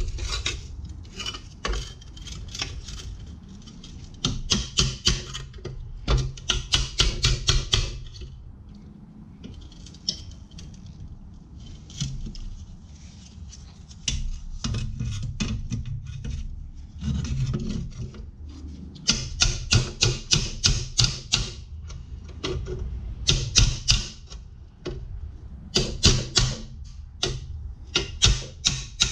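Hammer striking a steel battery bracket held in a bench vise, in quick runs of light blows several a second with short pauses between: bending a broken tab out so it can be welded.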